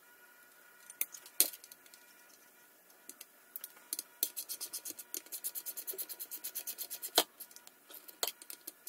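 Hand socket ratchet clicking rapidly, about nine clicks a second, as a bolt on an aluminium intake manifold is run down. Single sharp clicks of tool on metal come before and after the run, the loudest a little after seven seconds in.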